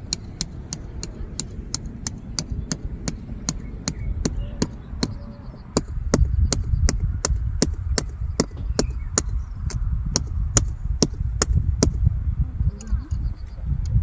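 Rapid, evenly spaced hammer strikes, about three a second, that stop about twelve seconds in, over wind rumbling on the microphone.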